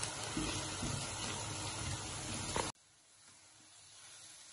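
Steady hiss of carrot halwa cooking in a wok as it is stirred with a metal spoon, with a few faint scrapes. It cuts off abruptly a little over halfway through.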